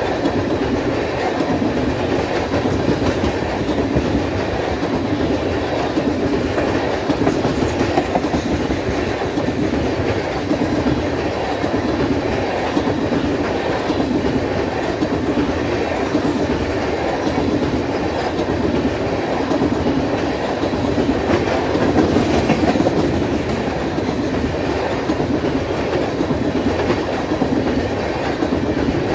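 Empty railroad tank cars of a unit oil train rolling past, steel wheels running on the rail in a steady, unbroken rumble.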